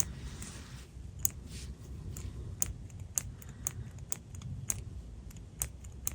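Small, sharp clicks at an uneven pace, about two a second, from the push-button lead-advance mechanism of a metal-bodied Scrikss Graph-X 0.5mm mechanical pencil being worked in the hand, with a brief soft handling rustle near the start.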